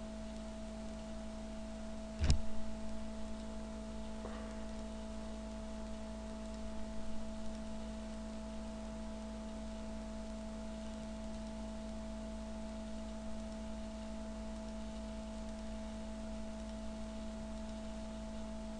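Steady electrical hum with a couple of constant tones, and a single sharp click about two seconds in.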